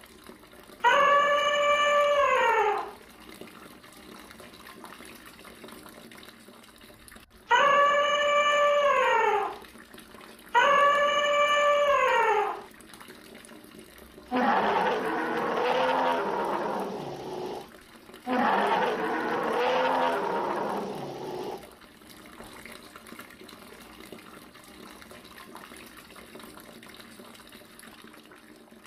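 Animal sound effects: a pitched call that holds its pitch and then drops, played four times, each about two seconds long, followed a little past halfway by two rough roars of about three seconds each. A faint steady hiss runs underneath.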